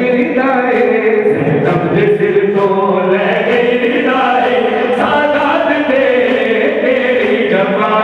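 A male reciter chants a Punjabi noha (Shia lament) into a microphone, in long sustained sung lines. A group of voices sings along in chorus.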